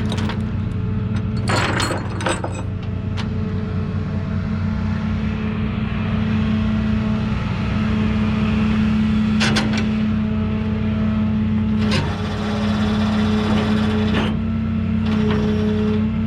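A vehicle engine running steadily at an even pitch, with a few short clicks or knocks over it.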